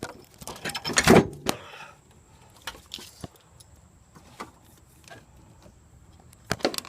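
An alternator clunking and scraping against metal in a car's engine bay as it is worked into place by hand. A loud clatter of knocks comes about a second in, then scattered light taps and clicks, and a few more knocks near the end.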